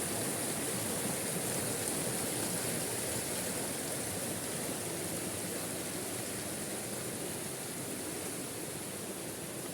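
Steady rush of water from a waterfall, an even hiss with no breaks, easing slightly in level toward the end.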